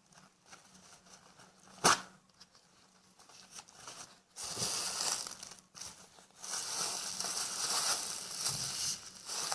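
Plastic freezer bag full of soapy foam being squeezed and crinkled in the hands. There is a sharp snap about two seconds in, then longer stretches of crackling, crinkling noise in the second half.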